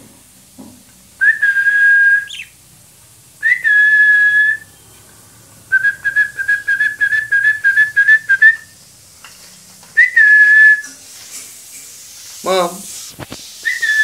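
A person whistling one steady high note: three long whistles of about a second each, and between them a fast run of short repeated whistles lasting about three seconds.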